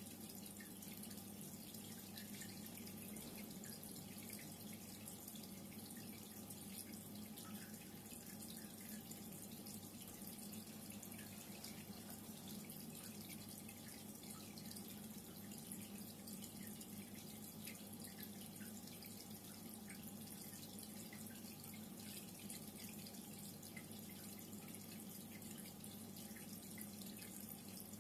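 Reef aquarium water circulating: a faint, steady trickle with small drips and splashes over a low hum, unchanging throughout.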